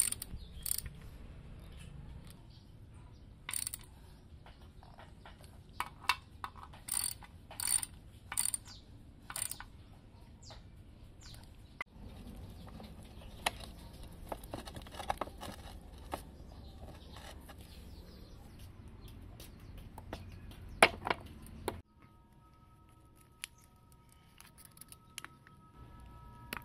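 Intermittent metallic clicks and clinks of hand work on diesel engine parts, over a low steady hum: a ratchet wrench turning a bolt on the engine casing, then a piston, its gudgeon pin and its rings being handled and fitted.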